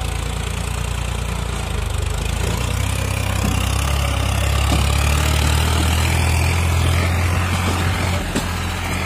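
Farmtrac 60 tractor's diesel engine running steadily under heavy load as it tows a fully loaded trolley, the pull great enough to lift the front wheels. The engine gets a little louder about two to three seconds in.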